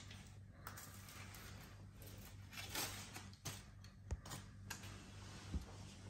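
Red-tailed black cockatoo chewing and tearing a paper toy with its beak: scattered small clicks and paper rustles, with a louder rip a little under three seconds in, over a steady low hum.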